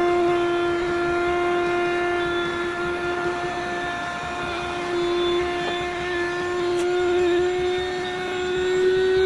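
Electric air pump running steadily as it inflates a Bestway air mattress, a loud, even motor hum that rises slightly in pitch near the end as the mattress fills.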